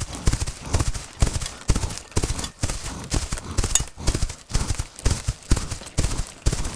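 American bison galloping on a packed-snow trail, their hooves thudding in a quick, uneven rhythm of about four beats a second.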